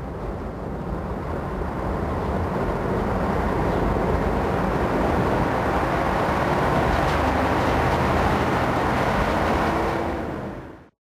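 Diesel engine of an M 131.1 railcar working hard as the railcar pulls away. The sound builds over the first couple of seconds, holds steady and loud, then fades out quickly near the end.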